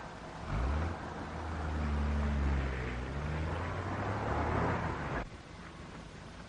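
A 1930s taxicab's engine revving as the cab pulls away from the curb. The engine starts about half a second in and cuts off suddenly about five seconds in.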